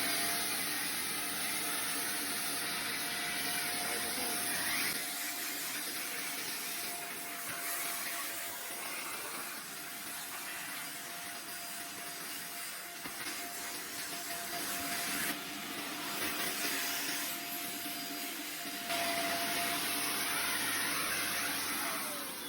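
1600 W DEXP vacuum cleaner running: a steady high motor whine over rushing air. The sound drops somewhat about five seconds in and comes back up near the end, then the machine is switched off and the whine falls in pitch as the motor spins down.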